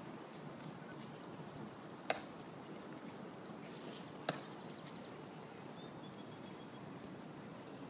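Two sharp clicks about two seconds apart from the Tomb Guard sentinels' metal-tapped shoes striking the plaza, over a quiet outdoor hush with a few faint high chirps.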